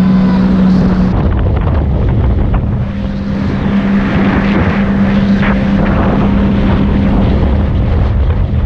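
Jet ski engine running at speed with a steady drone, mixed with wind buffeting the microphone. The drone drops away about a second in and picks up again a little later.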